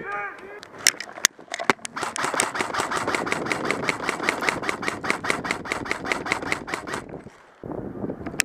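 Airsoft rifle firing a long string of rapid shots, an even run of sharp clicks about six or seven a second, that stops about seven seconds in. A few single shots come just before it.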